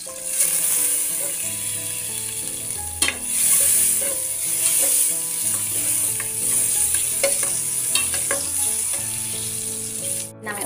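Butter melting and sizzling in a stainless steel pot over a gas flame, a steady hiss, while a metal spoon stirs it and now and then clicks and scrapes against the pot.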